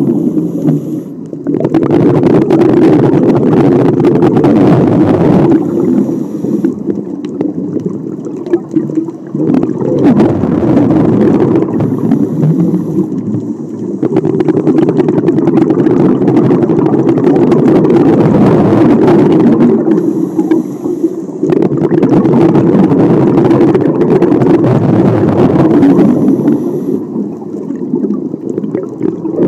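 Scuba diver breathing through a regulator underwater: long bubbling exhalations of several seconds each, broken five times by short, quieter inhalations.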